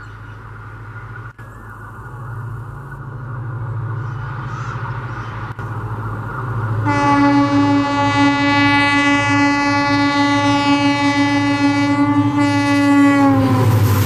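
WDP4B diesel locomotive (EMD two-stroke V16) approaching with its engine running ever louder, then sounding one long horn blast of about six seconds: an unusual honk like an electric locomotive's. The horn's pitch drops as the locomotive passes, and the coaches start to rush and clatter by.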